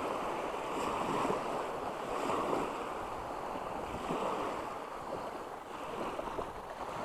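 Small waves washing up and draining back over a sand beach, a steady hiss of surf that swells and fades every second or two.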